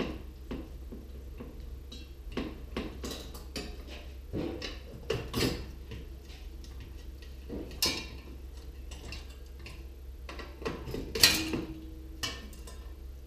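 Irregular metallic clicks and knocks of hand tools working on a gas stove's gas plumbing and fittings, with the loudest knock about 11 seconds in, followed by a brief squeak.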